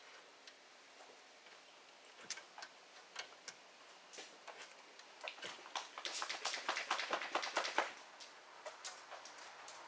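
Ratchet wrench working a bolt on a car's rear brake assembly: a few scattered metallic clicks, then a quick, even run of ratchet clicks from about six to eight seconds in.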